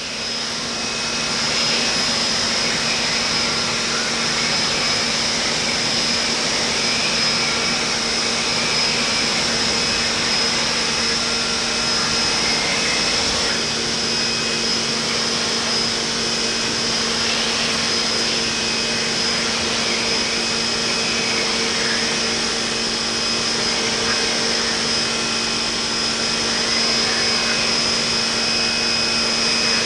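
Corded electric pressure washer (Portland 1750 PSI) running steadily, its motor and pump humming under the hiss of the spray.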